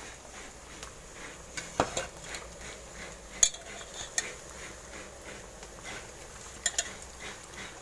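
Stainless-steel bowl and pot clinking as pieces of fish are dropped by hand into boiling fish curry. There are several sharp clinks, the loudest about three and a half seconds in and a quick pair near the end.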